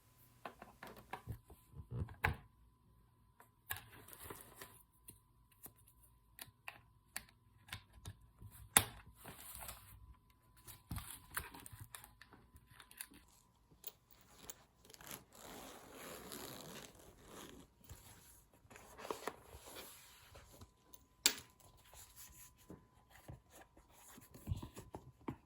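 Packaging being handled: stretches of rustling and tearing, with scattered sharp clicks and knocks of small plastic parts, as AAA batteries are unpacked and fitted into a wireless keyboard. The longest rustling comes in the second half.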